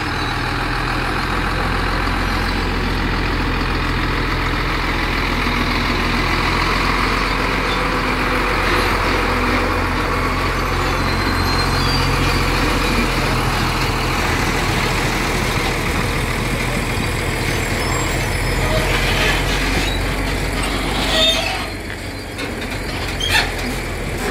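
Heavy truck's diesel engine running steadily as the tractor unit draws a sideloader trailer into place. The engine note drops about 21 seconds in, followed by a few sharp knocks.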